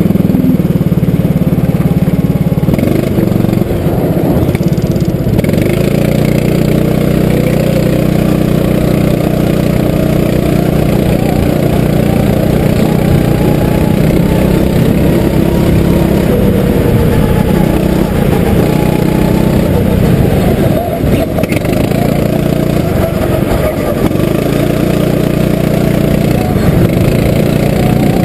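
Kart engine heard from onboard, running hard under throttle with a steady buzzing note that eases off and picks up again a few times.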